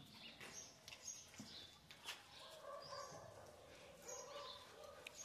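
Near silence on a tiled patio, with a few faint short high chirps and light clicks.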